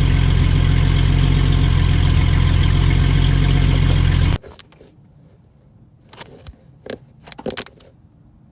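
Jeep Cherokee engine running steadily through a used junkyard exhaust, a loud, even exhaust note that cuts off abruptly about four seconds in. A few faint knocks and clicks follow.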